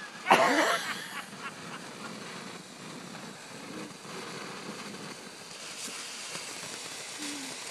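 Ground fountain firework hissing steadily as it sprays sparks, with a short shout just after the start.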